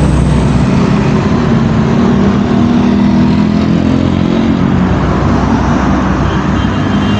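A motor vehicle's engine running loud and close as it travels past on the road, a steady low engine drone with no break.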